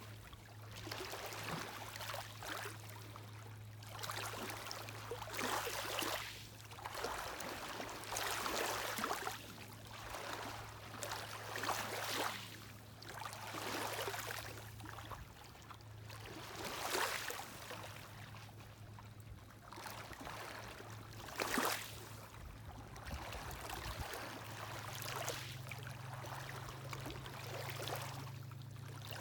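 Small lake waves lapping on the shore, the wash swelling and falling back every second or two, over a steady low hum.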